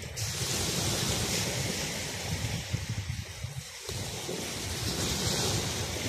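Small waves breaking and washing up a sandy beach: a steady hiss of surf that swells just after the start and again about five seconds in. Wind buffets the microphone with a low rumble that drops away briefly after three seconds.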